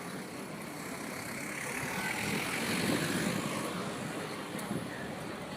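City street ambience with a road vehicle passing by. Its sound swells to a peak about three seconds in, then fades.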